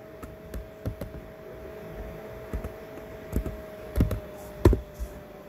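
Computer keyboard keystrokes and mouse clicks, about a dozen scattered, irregular clicks with the loudest a little before the end, over a faint steady hum.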